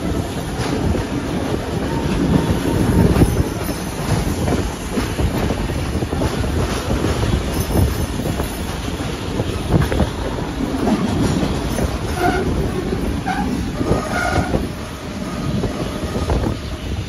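Steam-hauled passenger train running on the rails, heard from onboard: a steady rumble of wheels on track. A few short high-pitched tones come about twelve to fourteen seconds in.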